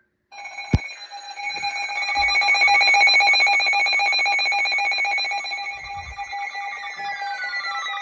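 Several NOAA weather radios sounding their alert alarms together, a stack of steady tones with a fast pulsing through them, the signal that a new severe thunderstorm warning is being issued. A sharp click comes just under a second in, and sliding, falling tones join in over the last two seconds.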